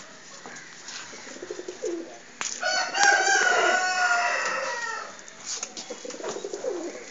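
A rooster crows once: one long call starting about two and a half seconds in and sinking in pitch toward its end. Pigeons coo low before and after it.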